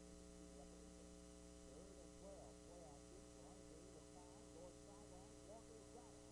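Near silence: a steady electrical hum with faint, indistinct wavering tones above it.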